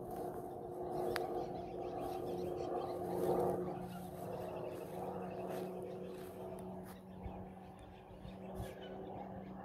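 Steady low drone of a distant aircraft, swelling briefly about three seconds in, with faint bird calls over it.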